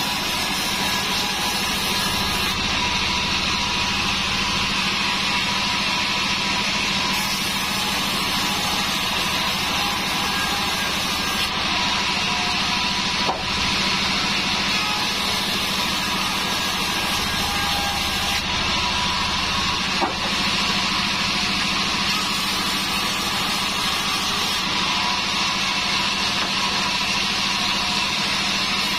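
Large sawmill band saw running steadily while cutting a wooden slab: a constant hum under the hiss of the blade in the wood. Two short clicks come through, one about halfway and another a few seconds later.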